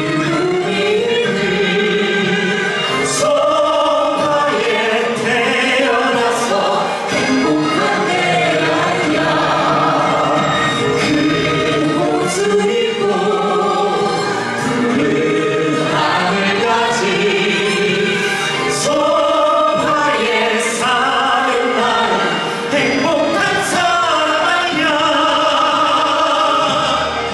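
A group of musical-theatre singers singing a song together over instrumental accompaniment.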